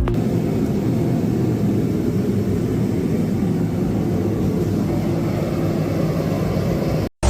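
Steady low mechanical roar of heavy industrial machinery, cutting off abruptly near the end.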